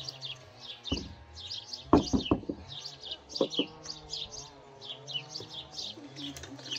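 Small birds chirping continuously, several quick chirps a second. A few knocks cut in, the loudest a quick cluster of three or four about two seconds in.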